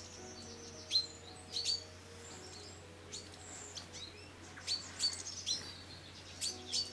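Small songbirds chirping: many short, sharp high calls, bunched about a second in and again around five to seven seconds in.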